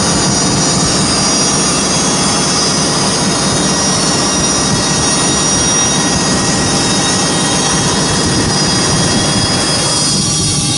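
CNC tool grinder grinding an endodontic file, its grinding wheel and spindle running with coolant pouring over the work. It makes a loud, steady machine noise with thin high whining tones, which thins out about ten seconds in.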